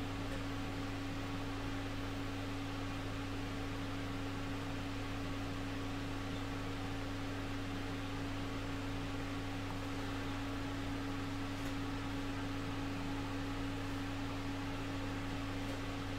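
Steady low electrical hum with a constant hiss, no distinct events.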